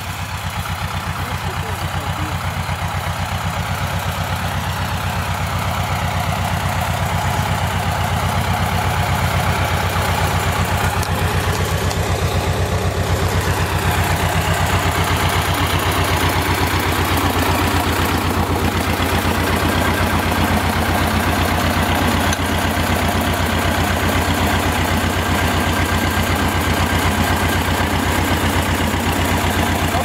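Small wheeled tractor's engine idling steadily with an even, fast pulse, getting louder over the first few seconds and then holding level.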